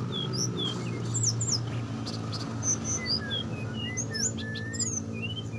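Small songbirds chirping, with many short rising and falling whistles scattered throughout, over a steady low hum.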